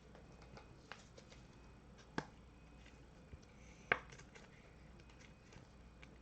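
Faint sounds of trading cards being handled: a few light clicks and taps, two sharper clicks about two and four seconds in.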